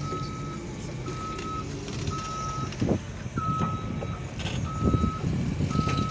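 Excavator's warning alarm beeping about once a second over its diesel engine running, with a couple of heavy knocks from the machine partway through.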